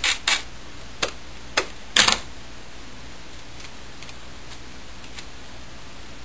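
Clear adhesive tape pulled off a handheld dispenser roll and torn off: a few short, sharp rips in the first two seconds, the loudest about two seconds in, then only faint ticks.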